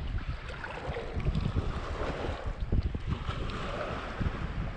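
Wind buffeting the microphone, with small waves washing in the shallows and scattered splashes.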